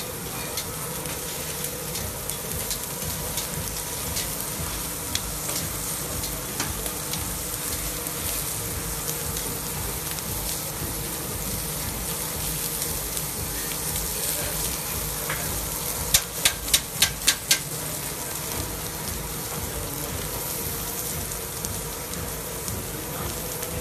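Beef steaks sizzling and crackling steadily on a hot grill. About two-thirds of the way through comes a quick run of about six sharp clicks, louder than the sizzle.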